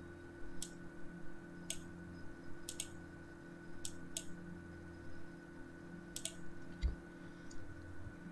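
Irregular sharp clicks from working a computer, about eight of them, some in quick pairs. Under them runs a steady low electrical hum with a thin high whine.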